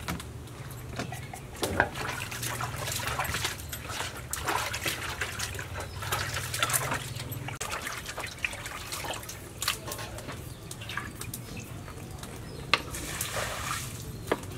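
Water sloshing and splashing in a steel bowl as meat is washed by hand, mixed with knife scrapes from vegetables being peeled and cut, and a few sharp clicks near the end.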